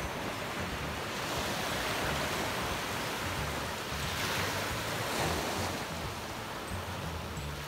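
Small waves breaking and washing up on a pebble shore, swelling twice, with a low rumble of wind on the microphone.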